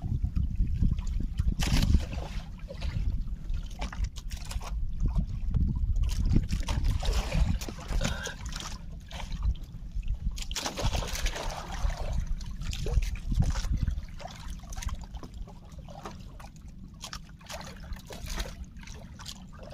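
Sea water splashing and sloshing against a small fishing boat, in irregular splashes over a steady low rumble.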